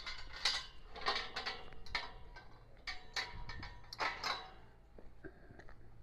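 Footsteps and handling noise of a person walking along a concrete barn aisle: irregular scuffs and clicks, busiest in the first four seconds, then sparser.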